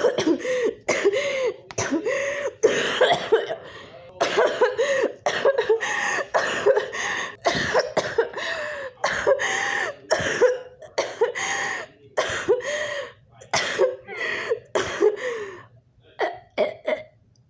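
A person acting out a long fit of hacking coughs and choking, about two coughs a second. The coughs grow sparser and weaker near the end, as the choking character gives out.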